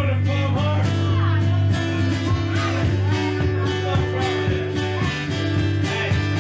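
Acoustic guitar strummed steadily in a blues-folk song played live, with no singing.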